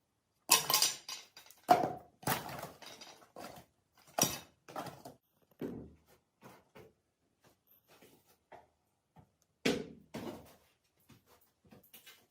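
A run of irregular knocks and clinks, as of hard objects being handled and set down. The loudest come about half a second in, near two seconds, and near ten seconds.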